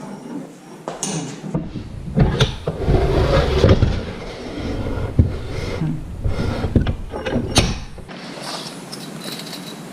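Heavy bench vise being shifted and positioned on a workbench: clunks and knocks over a low scraping rumble, settling down near the end.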